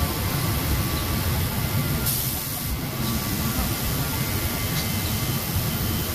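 Steady low rumble of industrial machinery with a faint steady whine. A brief, loud hiss, like escaping air, comes about two seconds in.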